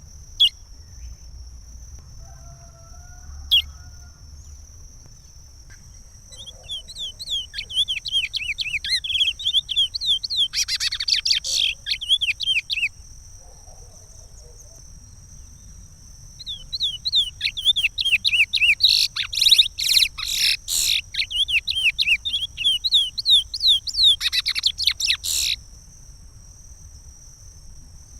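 Chestnut-bellied seed finch (curió) singing the Pará regional song type: two long phrases of rapid, repeated sweeping whistled notes, the first starting about a quarter of the way in and the second, louder, in the second half.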